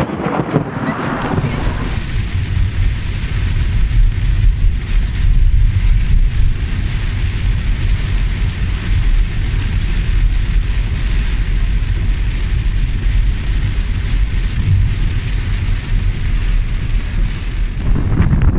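Strong storm wind buffeting the microphone: a loud low rumble that surges and eases in gusts, with a fainter hiss over it.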